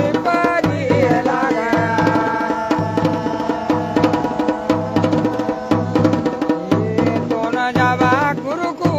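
Pahari dhol and damau drums playing a steady beat of about three strokes every two seconds, under a melody of held and sliding notes.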